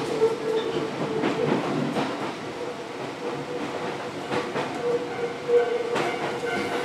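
Inside a moving commuter train car: a steady rolling rumble with a held hum, and a few sharp knocks of the wheels over rail joints.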